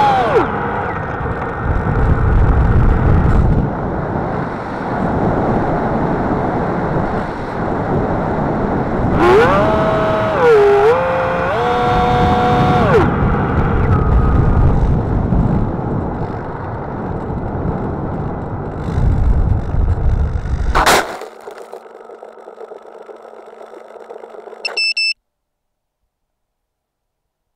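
FPV racing quadcopter's brushless motors running with heavy wind rush on the onboard microphone, the motor tone rising and falling with throttle between about 9 and 13 seconds in. About 21 seconds in there is a sharp knock, after which the motor noise drops away to a quieter low hum before the sound cuts off.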